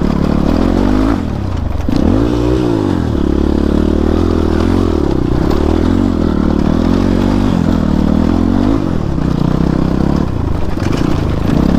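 Motorcycle engine running as it is ridden off-road, revving up and back down once about two seconds in and otherwise holding a fairly steady pitch.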